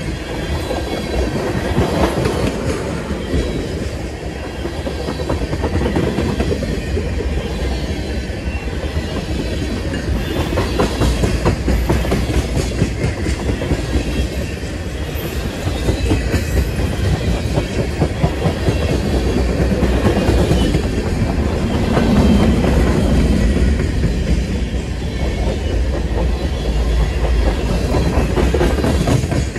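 Freight train tank cars rolling past at close range: a steady rumble of steel wheels on rail, with rapid clicking and clacking from the wheels.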